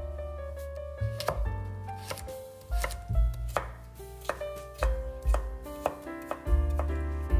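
Knife chopping on a cutting board: about a dozen irregularly spaced strokes. Soft piano music plays underneath.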